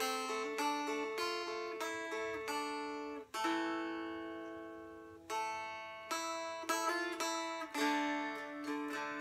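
Mountain dulcimer tuned D-A-C, strummed with a pick as it plays a shape-note hymn tune. A run of quick strokes breaks off about three seconds in for one long chord left ringing out, then the strumming picks up again over a sustained lower note.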